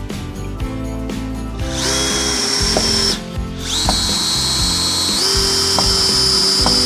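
Power drill driving screws into wood framing: a high motor whine in two long runs, the second stepping up in pitch partway through as the speed rises.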